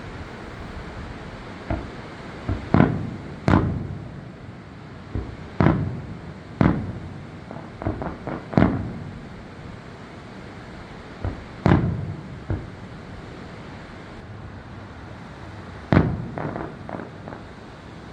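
Aerial fireworks bursting: a string of sharp bangs at irregular intervals, each trailing off in a rolling echo, some coming in quick clusters. There is a lull of a few seconds near the end before one of the loudest bangs and a quick cluster after it.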